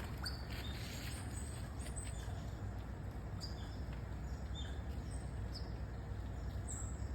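Otters giving short, high-pitched chirps, a dozen or so scattered calls that mostly fall in pitch, over a steady low rumble.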